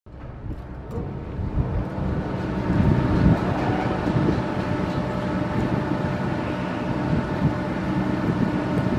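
Wind buffeting the camera microphone in an irregular rumble, over a steady droning hum of several even tones; the sound cuts in suddenly at the start.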